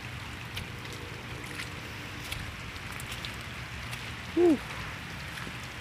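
Steady rush of a flood-swollen, muddy river carrying debris, with a faint low hum in the first half. A short voiced call with a falling pitch stands out about four and a half seconds in.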